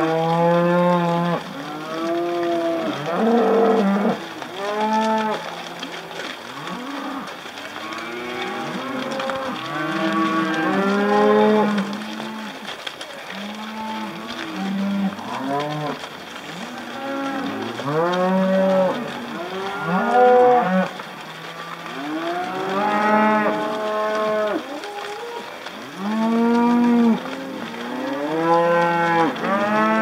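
A herd of cattle on the move, many cows mooing, their calls overlapping and following one another every second or two, each call rising and then falling in pitch.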